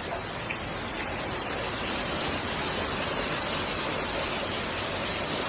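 Water running in a steady rushing flow, a little louder from about two seconds in.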